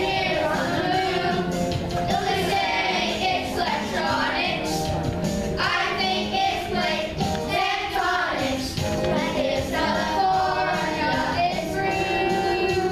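A fourth-grade children's chorus singing a song together, over steady instrumental accompaniment.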